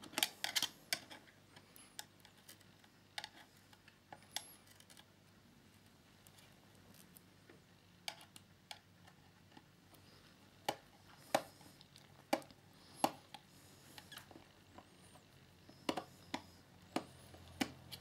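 Small screwdriver working the tiny screws of a laptop's aluminium bottom panel: scattered faint metal clicks and ticks, bunched in small groups with quiet gaps between.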